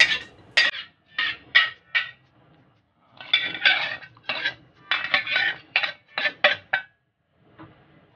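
Metal kitchenware clinking and scraping, a utensil against a metal pot, in runs of short, sharp strokes with brief pauses between them.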